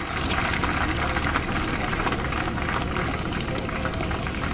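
A crowd applauding, with many hands clapping. It comes up at once and then holds steady.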